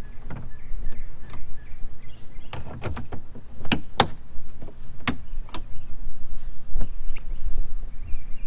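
Irregular clicks and knocks of hardware and a plastic thigh brace being handled and fitted inside a plastic whitewater kayak, the sharpest knocks coming between about two and a half and seven seconds in.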